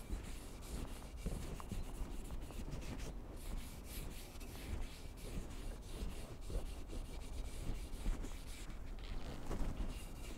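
Cotton cloth rubbing linseed oil into a bare wooden hatchet handle: a continuous run of quick, scratchy back-and-forth strokes of fabric on wood.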